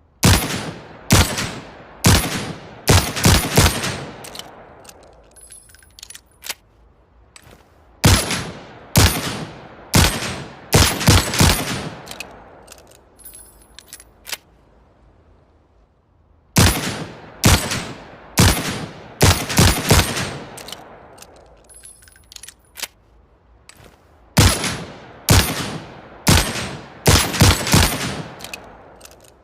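Manurhin MR-73 revolver firing in four strings of about six shots each, every shot sharp with an echoing tail. Faint metallic clicking and rattling fill the pauses between strings.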